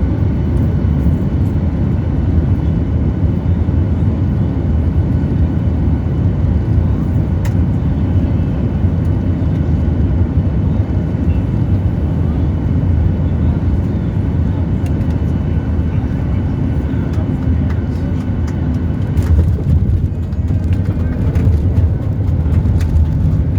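Steady low rumble of an airliner heard from inside the passenger cabin: engine and airflow noise with a faint steady whine. A few clicks come in, and it grows slightly louder, about 19 seconds in.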